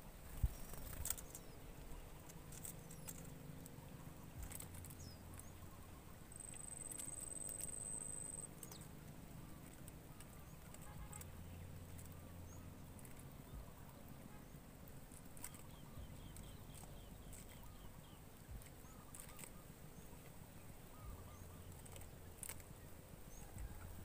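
Faint outdoor ambience: a low steady hum with scattered sharp clicks, the loudest just after the start. A thin high whine lasts about two seconds, and a quick run of faint chirps comes a little after the middle.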